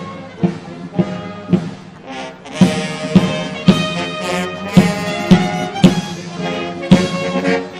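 Marching band playing: brass (trumpets and trombones) over a steady bass drum beat of about two strokes a second. The brass swells fuller about a third of the way in.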